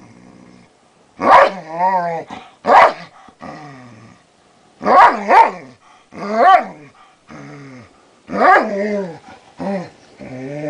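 A dog barking and growling: a string of sharp barks, about six of them, with drawn-out growls between them that rise and fall in pitch.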